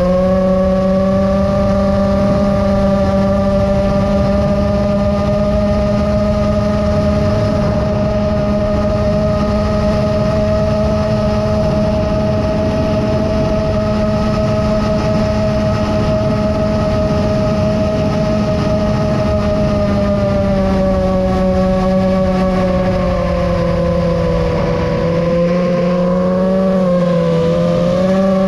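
Seven-inch FPV quadcopter's brushless motors and propellers whining at a steady cruising throttle, heard from the onboard camera along with a rush of wind. In the last several seconds the pitch wobbles up and down as the throttle changes.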